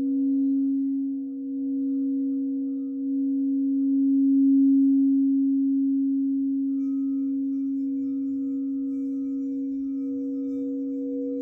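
Singing bowl sounding one steady, sustained low tone that slowly swells and eases in loudness, with a fainter higher ringing tone joining about seven seconds in.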